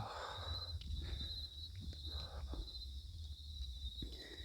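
Crickets or similar insects chirring in one steady high-pitched note, over a low rumble, with a few faint footsteps.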